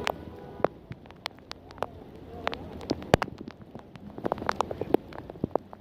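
Heavy raindrops striking a hard surface close by, as irregular sharp taps several times a second over a low rumble.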